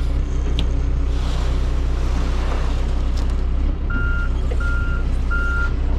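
A heavy vehicle's engine running with its reversing alarm beeping evenly, about one and a half beeps a second. The beeping pauses for the first few seconds while a rush of noise swells and fades, then starts again about four seconds in.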